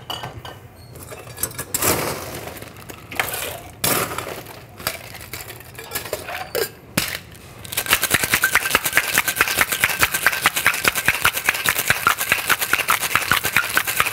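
Scattered clinks and knocks of bar tools and glassware for the first several seconds, then about eight seconds in a cocktail shaker starts being shaken hard: ice rattling fast and evenly inside the metal tin until the end.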